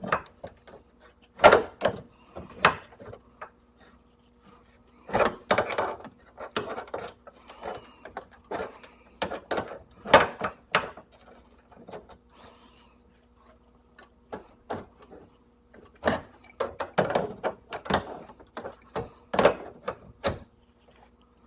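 Irregular metallic clicks and knocks of an adjustable wrench being worked on a loose refrigerant line fitting, tightening it to stop a refrigerant leak. A faint steady hum runs underneath.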